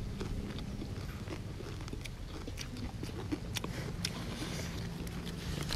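Close-up chewing and crunching of singju, a raw salad eaten with cabbage leaves, heard as irregular crunches and mouth clicks.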